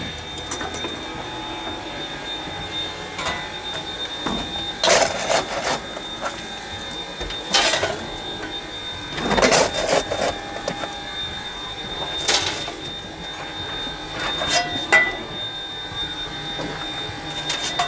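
Coal shovel scraping up slack and throwing it through the firedoor into a steam locomotive's firebox, about five scoops a couple of seconds apart, over the steady rush of the running injector. The slack goes on a dying fire to hold boiler pressure while the boiler is topped up for the night.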